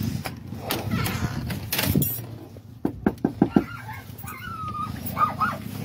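Knuckles knocking on a front door, about five quick raps. A dog answers with a brief high call and a few short yelps.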